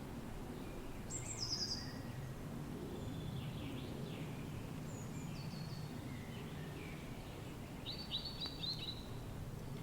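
Steady low wind rumble with wild birds singing over it: a quick run of high descending notes about a second in, a few short high notes midway, and a rapid series of about five notes near the end.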